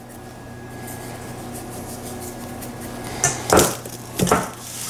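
Stainless steel mixing bowl knocking and scraping as a pork roast is turned in it during seasoning: three short bumps in the last two seconds.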